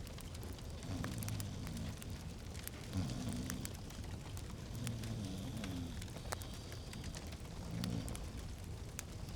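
Wood fire crackling in a fireplace: a steady hiss with scattered sharp pops and snaps.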